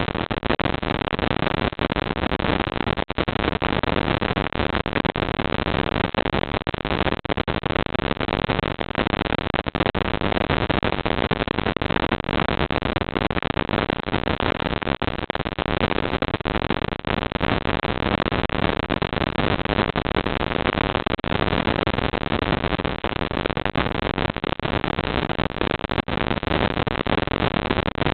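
Steady hiss from a CCTV camera's built-in microphone, with brief dropouts here and there.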